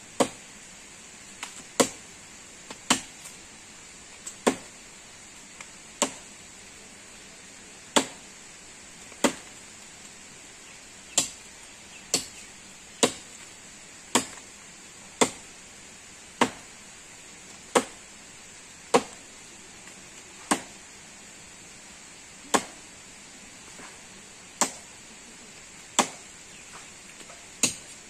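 A blade chopping into a tree branch, sharp single strokes about one every second or two, some twenty in all, with a few lighter taps between them.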